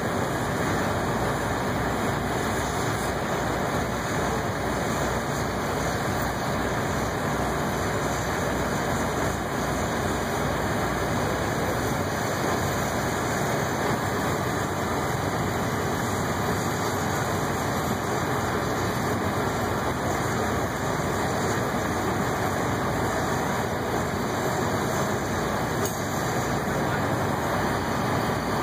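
Heavy diesel engines of mobile cranes running steadily as they hoist a large steel tank, with a faint low throb and no separate knocks or changes.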